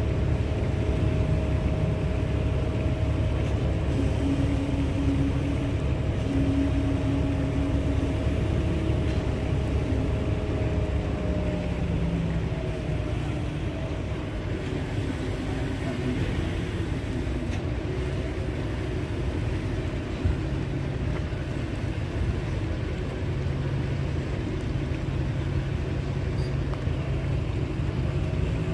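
Engines of heavy construction machinery running steadily, with a few held engine tones that shift in pitch now and then.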